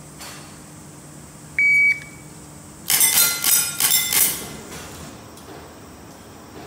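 Electronic shot-timer start beep, then about a second later a rapid string of airsoft pistol shots, the hits ringing off the steel plate targets.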